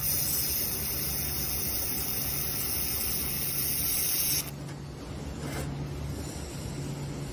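Handheld laser welder firing on a steel flange fitting: a steady hiss that cuts off suddenly about four and a half seconds in when the beam stops. A low steady hum from the machine carries on throughout.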